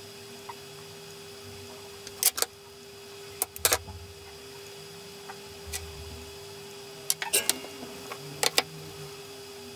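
Small tools and objects being picked up and set down on a wooden workbench: a series of sharp clicks and knocks, in clusters about two, three and a half, and seven to eight and a half seconds in, over a steady hum.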